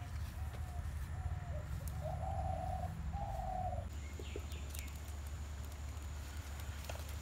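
A dove cooing: two short falling notes, then two longer, steady ones, over a low steady rumble. A few faint clicks follow about four seconds in.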